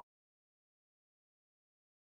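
Silence: no sound at all.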